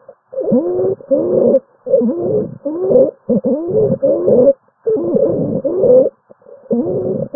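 Clinical recording of stridor: a musical, pitched breath noise that glides in pitch, repeating about twice a second with the rapid breathing, mostly in close pairs. It is the sign of a narrowed upper airway.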